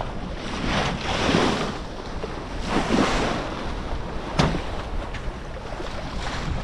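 Sea water splashing and rushing past a moving boat's hull, with wind buffeting the microphone. The splashing swells louder twice, and a single sharp knock sounds about four and a half seconds in.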